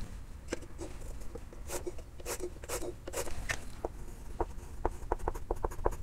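Chalk tapping and scratching on a chalkboard as someone writes: a scatter of short, sharp taps, quickening to several a second near the end.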